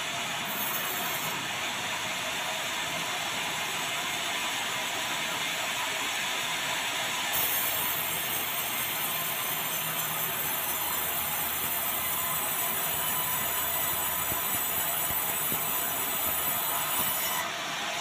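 Band sawmill running steadily while sawing dry bengkirai (yellow balau) hardwood. About seven seconds in, a high hiss joins the steady running sound and drops away shortly before the end.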